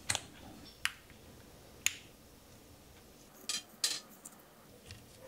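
Light plastic clicks and taps as a small 9-gram hobby servo is pushed and seated into a 3D-printed plastic mount; about five sharp, separate clicks spaced out with quiet between.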